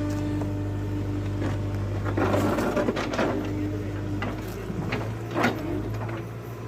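JCB 3DX backhoe loader's diesel engine running with a steady hum, its note changing about two and a half seconds in. From about two seconds in, irregular sharp knocks and clatter of rocks striking against the machine's steel bucket.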